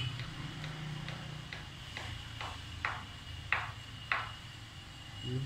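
Footsteps on a concrete floor at walking pace, light at first and then a few heavier steps in the middle, over a low steady hum.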